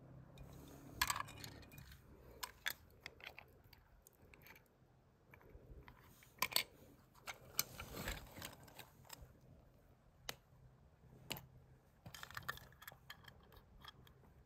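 Small die-cast metal and plastic toy cars being handled and knocked together: scattered light clicks and clinks.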